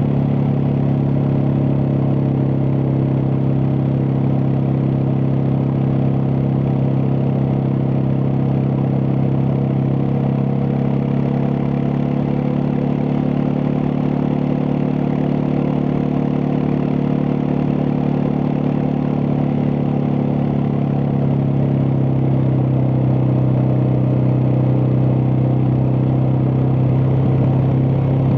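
Suzuki DR650's single-cylinder engine running steadily at cruising speed. Its pitch eases slightly about halfway through and picks up again near the end.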